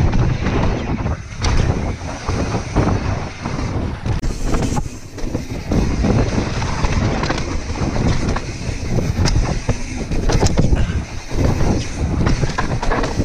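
Mountain bike riding fast down a dirt trail: steady wind rumble on the microphone and tyre noise, broken by many sharp knocks and rattles from the bike over bumps.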